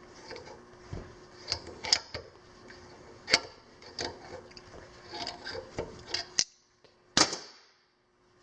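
Knipex plier wrench working on a pipe fitting: irregular metallic clicks and knocks as the jaws are set, grip and turn the fitting loose. The sharpest knocks come about three seconds in and again near the end.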